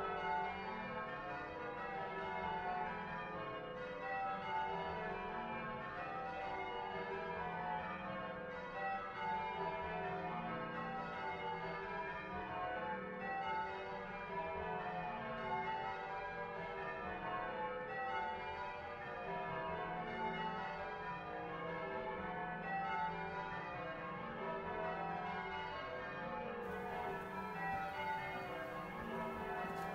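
Church tower bells being rung in changes: a ring of bells striking one after another in a steady, continuous sequence.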